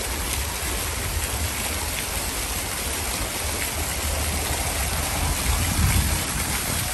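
Fountain jets splashing steadily, water shooting up and falling back into the basin in a continuous hiss.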